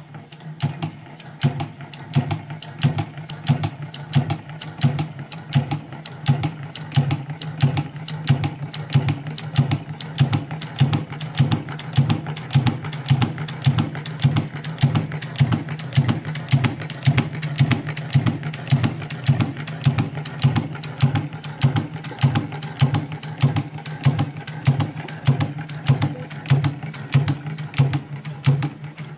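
Restored BUSM A1 leather sewing machine running steadily, its mechanism clattering in a fast, even rhythm of clicks over a steady low hum.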